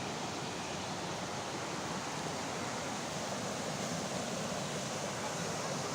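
Waterfall's water rushing in a steady, unbroken roar of noise.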